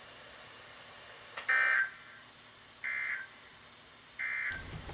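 Emergency Alert System end-of-message data bursts (SAME EOM) from NOAA Weather Radio: three short, raspy digital tone bursts about 1.3 s apart, which mark the end of the tornado warning broadcast. Near the end the audio changes abruptly and a low hum comes in.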